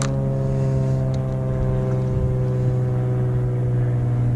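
Outboard motor idling with a steady, even hum. A brief sharp click right at the start and a faint tick about a second in.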